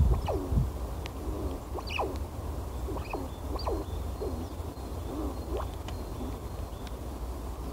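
Eurasian red squirrels calling to one another with a run of short, soft calls that slide down or dip and rise in pitch, roughly every half second, thinning out after about six seconds. A few faint clicks sit among the calls, over a steady low rumble.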